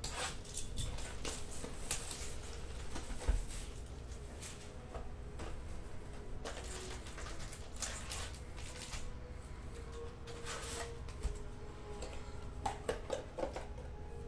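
Plastic wrap being cut and torn off a trading-card hobby box, then the cardboard box opened and foil card packs pulled out and handled: a run of short, irregular crinkles and scrapes.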